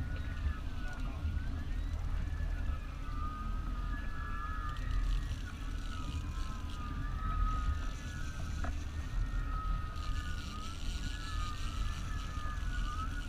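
Steady low rumble of the boat's engine running under way, with a high whine that wavers up and down in pitch throughout.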